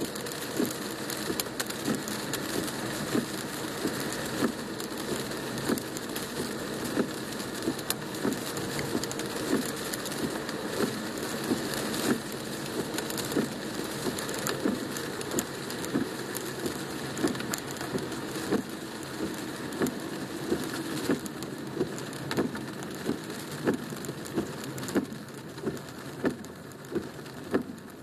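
Heavy rain drumming on a car's roof and windshield, heard from inside the car: a steady patter broken by many sharp, louder drop hits, a few each second.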